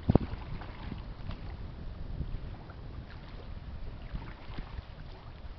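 Wind buffeting the microphone, a gusty low rumble, with a sharp thump just after the start.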